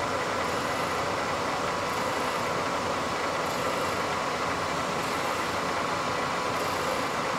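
Kearney & Trecker 4H horizontal milling machine running steadily, its arbor-mounted cutter milling the teeth of a hardened steel rack. A faint high chirp comes back about every second and a half.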